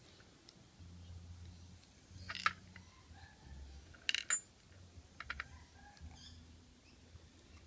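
Small metal padlock parts and a screwdriver clicking and clinking against each other and a hard surface during disassembly: a few sharp taps, then a brighter ringing clink about four seconds in, and more light clicks after.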